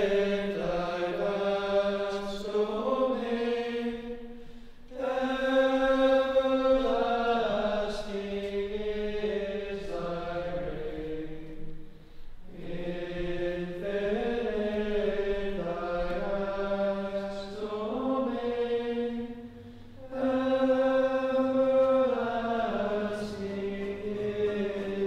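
Slow sacred chant sung by voices: long held notes moving in phrases, with short breaks about every eight seconds.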